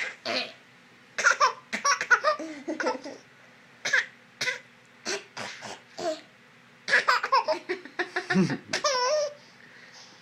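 A young child fake-coughing in short, irregular bursts mixed with giggly laughter, in several runs with short pauses between them, ending in a higher, wavering laugh near the end.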